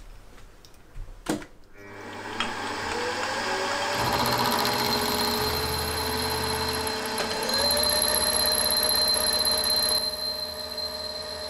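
A click, then a milling machine spindle whines up to speed and an end mill cuts into an aluminium conrod blank. The cut gives a steady whine with a rough cutting noise over it, rising a step in pitch about halfway through.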